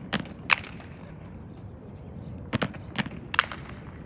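Sharp slaps and stomps from a four-person unarmed drill team working through a routine. There are two near the start, then a quick run of four about two and a half to three and a half seconds in.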